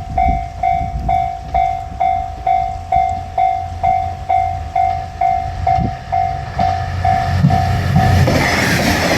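Japanese railway level-crossing alarm bell ringing at about two strikes a second over the low rumble of an approaching diesel railcar. Near the end the bell stops and the train's running noise, wheels clacking over the rails, swells loudly as it passes.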